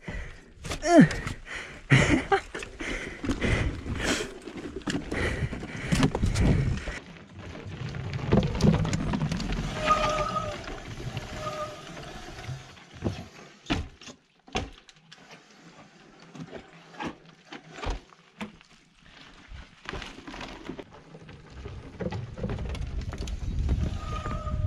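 Norco Sight mountain bike riding a dirt forest trail, its tyres, chain and frame rattling and knocking over roots. After a cut the sound thins to scattered sharp knocks and clatters as the tyres roll across the wooden slats of an elevated bridge.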